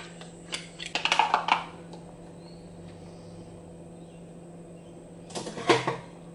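Kitchen utensil handling: a spoon and a plastic smoothie cup give a quick cluster of clicks and knocks about a second in, and another brief knock near the end, over a steady low hum.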